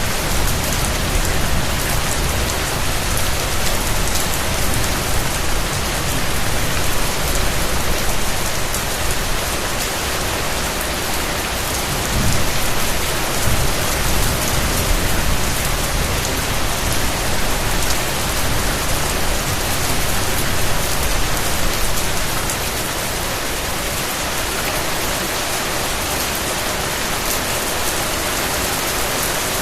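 Steady rain falling on surfaces, a dense even patter with a deeper low rumble underneath that eases and gets slightly quieter about three-quarters of the way through.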